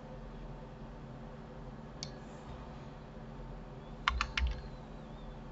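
Computer keyboard keystrokes over a low steady hum: a single click about two seconds in, then a quick run of three or four keystrokes about four seconds in.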